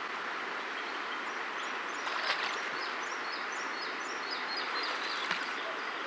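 A small songbird singing a run of short, high chirps over a steady outdoor hiss, with two soft knocks about two and five seconds in.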